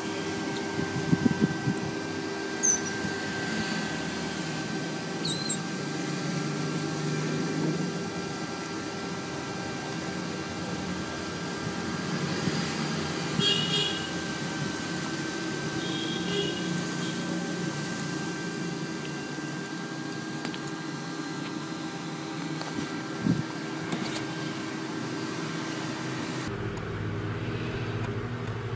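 A steady hum, with a few short, high squeaks from a baby otter. The hum shifts to a lower one near the end.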